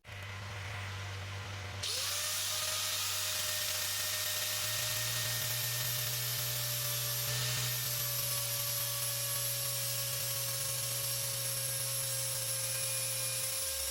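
Angle grinder running steadily as it grinds the worn grooves off a car's front brake disc, done to cure a loud brake squeal. It gets louder about two seconds in as the grinding hiss sets in, and stops just before the end.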